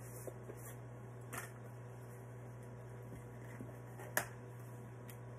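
Light clicks and taps of kitchen utensils and a container being handled, with one sharp click about four seconds in, over a steady low hum.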